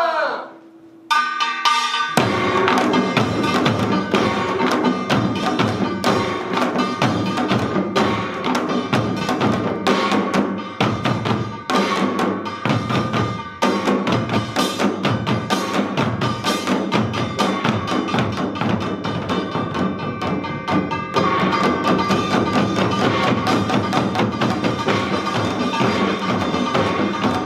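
Samul nori percussion ensemble: janggu hourglass drums, buk barrel drums and small gongs. A shout dies away at the start and there is a short pause with one stroke about a second in. From about two seconds in the whole group plays a fast, dense rhythm under a steady gong ring.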